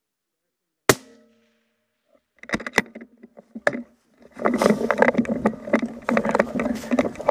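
A single suppressed rifle shot from an Accuracy International AE MkIII in .260 Remington with a titanium suppressor, a sharp crack with a short ringing tail about a second in. A few sharp metallic clicks follow, as the bolt is worked, and from about four seconds in there is steady clattering and rustling handling noise as the rifle is moved.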